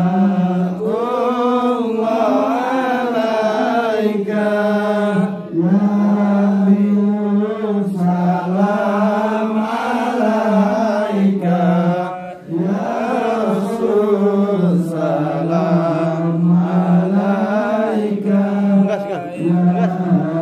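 Men's voices chanting Islamic devotional praise (marhaban salawat to the Prophet) as a flowing, melismatic melody. The chant runs in long phrases with a few short breaks for breath.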